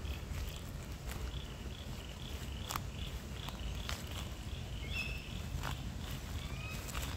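Footsteps of a person walking, with irregular steps about once a second. Faint high chirps sound behind them over a steady low rumble.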